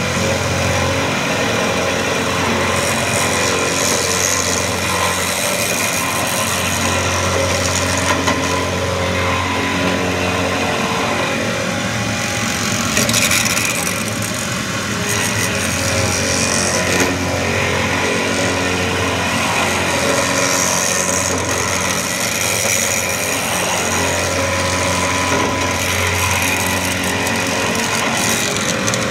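CNC milling machine spindle running while an end mill cuts into a cast metal carburetor body, a steady loud machining noise with high hiss over it. A low hum comes and goes every few seconds as the cut goes on.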